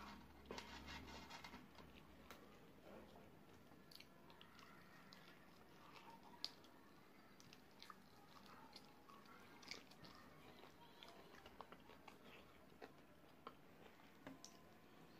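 Faint close-up eating sounds of sauce-coated fried chicken wings: sticky tearing as a wing is pulled apart by hand, then biting and chewing with scattered small clicks and crackles, one sharper click about halfway through.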